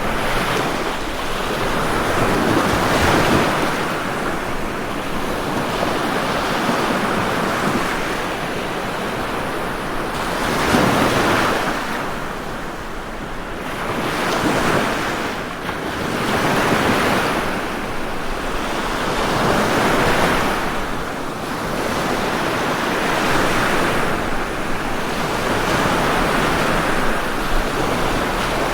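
Ocean waves washing onto a shore, the surf swelling and ebbing in repeated surges every few seconds.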